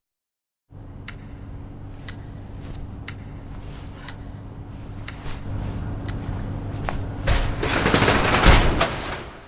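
Non-musical intro sound effect: a steady low hum with a faint tick about once a second, building near the end into a loud rushing rattle that fades out.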